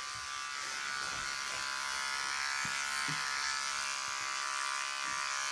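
Cordless electric hair clippers running with a steady buzz while trimming short hair around the ear.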